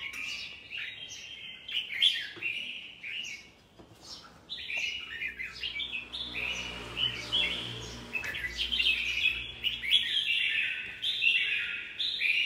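Caged red-whiskered bulbuls chirping and singing in a quick, continuous string of short, clear notes.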